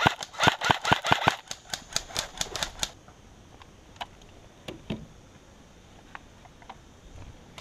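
Airsoft M4A1 replica firing a rapid string of shots, about five sharp cracks a second. The shots are loud for the first second and a half, then fainter until about three seconds in, followed by a few scattered faint clicks.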